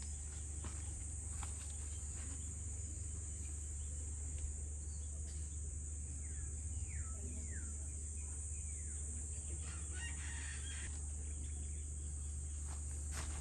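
A rooster crowing a few times, heard over a steady, high-pitched drone of insects.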